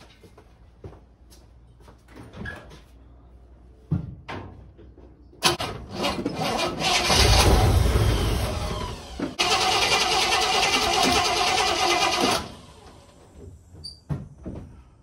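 Chevrolet 348 V8 in a 1958 Impala cranking, catching and running loudly for about seven seconds, starting about five seconds in and stopping suddenly near the twelve-second mark. A few light knocks come before it.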